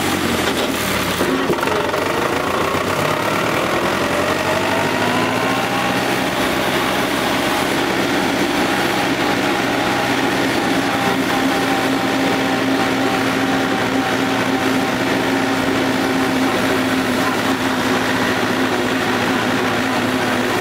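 Case David Brown 995 tractor's diesel engine running as the tractor drives along. Its note rises over the first few seconds as it speeds up, then holds steady.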